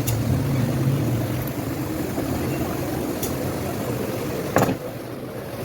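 Steady low mechanical hum with a few short clicks of tools on metal parts during steering rack assembly, and one louder knock about four and a half seconds in.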